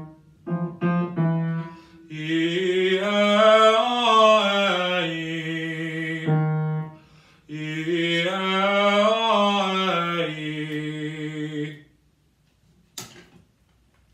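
A male voice sings a warm-up exercise: after a few short notes, two long vowel phrases each climb up a scale and come back down, a few seconds apiece. Near the end there is a single sharp click.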